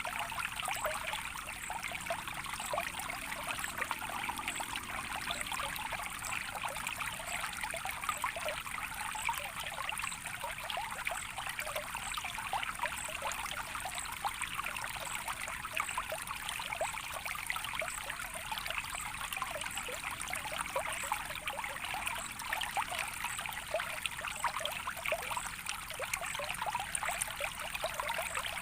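Small stream of water trickling and babbling steadily, a dense run of many small splashes with no change.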